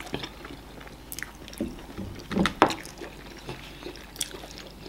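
Wet eating sounds of amala eaten by hand with slimy ogbono soup: scattered squelches and smacks as fingers work the sticky soup and mouths chew, with a louder pair of smacks about halfway through.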